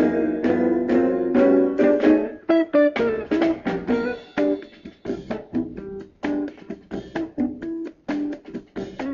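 Background music led by guitar: full chords for the first couple of seconds, then a run of single plucked notes at an even pace.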